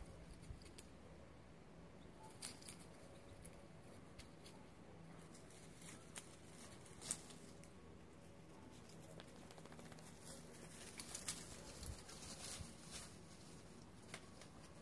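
Quiet yard with faint, scattered rustling and soft ticks of dry leaves and grass as a puppy's paws move through them, with a few sharper light clicks from about ten seconds in.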